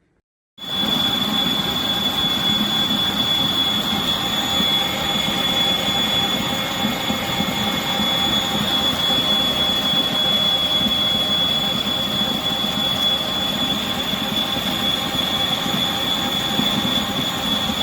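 A 660W electric stand mixer switched on about half a second in and running steadily: an even motor hum with a strong, steady high-pitched whine over it.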